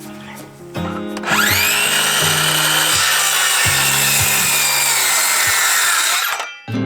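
Electric power saw cutting through a wooden board. Its whine rises quickly as the blade spins up, then sinks slowly under load for about five seconds, and the sound cuts off abruptly near the end. Background guitar music plays underneath.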